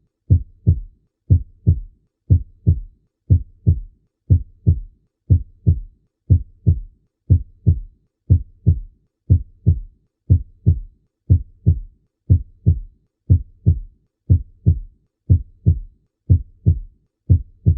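Human heartbeat heard on cardiac auscultation: paired lub-dub sounds (first and second heart sounds) in a steady rhythm of about one beat a second, with quiet gaps between the beats.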